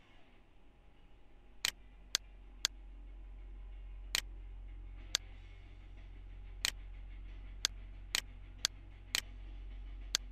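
Computer mouse button clicking: about a dozen sharp clicks at uneven intervals, several in quick double-click pairs, over a low steady hum.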